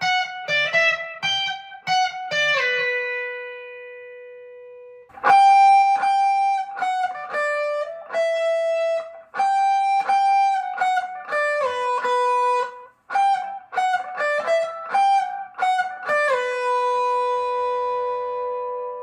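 Squier Bullet Telecaster electric guitar through a miked amplifier, playing single-note melodic phrases. Each phrase ends on a held note left to ring. The first phrase is through 500K volume and tone pots. The phrase starting about five seconds in is through the stock 250K pots.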